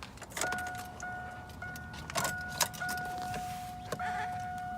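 A steady electronic warning tone that starts about half a second in and breaks off briefly about every second and a bit. It is mixed with clicks, knocks and the jingle of keys.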